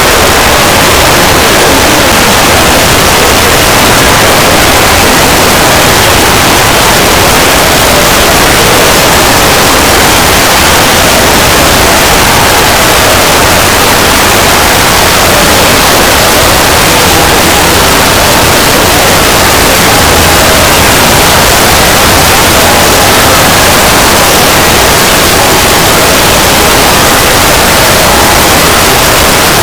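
Loud, steady static-like white noise with no pitch or rhythm, spread evenly from low to high and unchanging, used as the extended sound effect of a fan-made logo.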